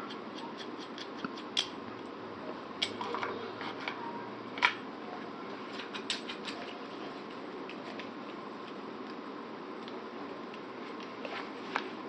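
Scattered small clicks and taps of an optic being fitted and tightened onto a polymer shotgun rail mount, over a steady background hiss.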